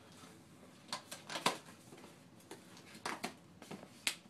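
A doll being handled in its cardboard box: a string of short clicks, scrapes and rustles of packaging, loudest about a second and a half in and again near the end.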